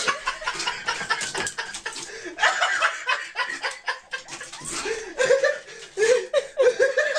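A person laughing in short bouts, over a steady crackle and rustle of bags and packaging as a cat digs into them.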